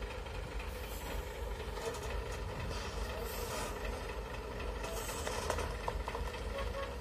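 Heavy truck engine running steadily, a low rumble with faint clicks and rattles over it.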